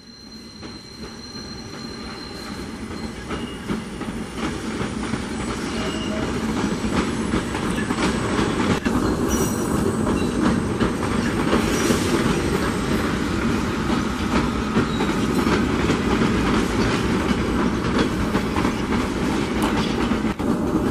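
SEPTA train passing close by: steady rumble of wheels on the rails with clickety-clack over the rail joints. It grows louder over the first several seconds, then holds steady.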